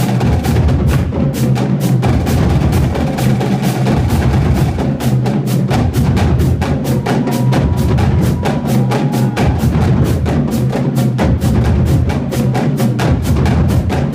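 High school drumline playing: a dense run of fast drum strokes with bass drums coming in and out in short phrases.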